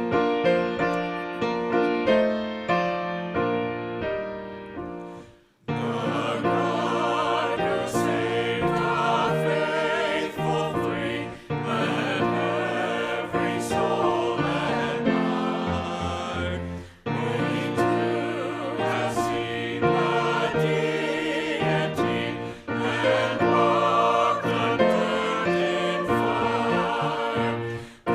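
Hymn singing with keyboard accompaniment. A keyboard passage fades out, and after a short break about six seconds in, voices singing with the accompaniment start, pausing briefly between phrases.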